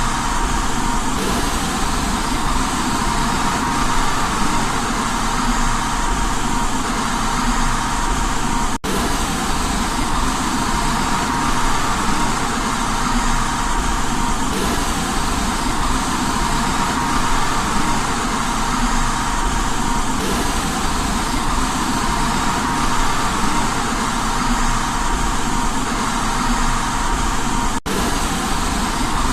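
Steady white noise for baby sleep: an even hiss with a faint steady tone in it. It cuts out for an instant about nine seconds in and again near the end.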